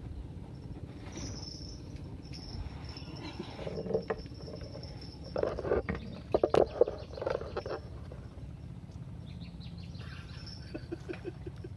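Handling noise from a phone camera rubbing and knocking against clothing as it is moved, loudest in a cluster of knocks in the middle. Underneath runs a steady low background noise with a faint steady high tone, and a few small clicks come near the end.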